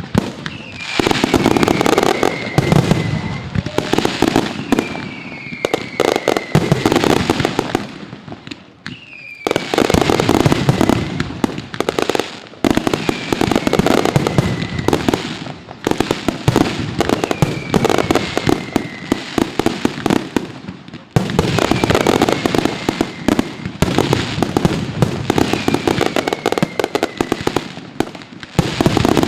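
Mascletà firecracker barrage: masclets going off in a dense, rapid-fire string of cracks and bangs, with a falling whistle every couple of seconds. The barrage slackens briefly a few times before building again.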